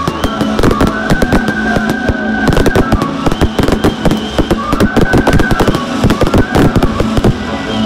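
Fireworks display: a dense, continuous barrage of bangs and crackles, many each second, with steady held tones sounding underneath.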